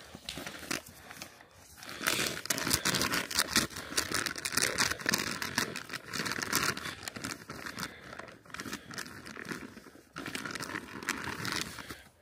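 Packaging crinkling and rustling as it is handled, in irregular bursts that grow louder about two seconds in.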